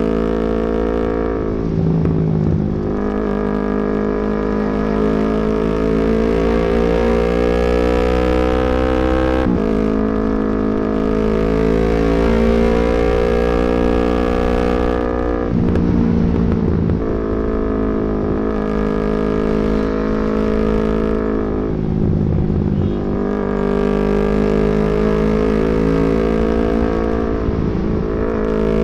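Yamaha MT-25's parallel-twin engine heard from the rider's seat as the motorcycle rides on, with a steady low wind rumble underneath. The engine note climbs slowly and falls back sharply three times.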